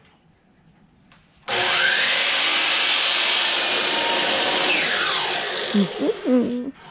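Electric miter saw starting suddenly about a second and a half in and running for about five seconds as its blade cuts a 45-degree miter through quarter round trim, then winding down near the end.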